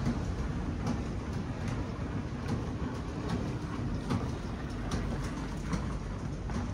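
Footsteps at a steady walking pace, a short tap a little more than once a second, over a continuous low rumble of city traffic.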